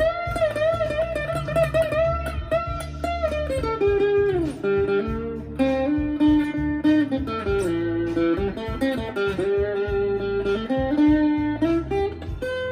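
Overdriven electric guitar playing a lead line over a backing track with bass and drums: a held, bent note with vibrato for the first few seconds, then falling runs and shorter bent phrases.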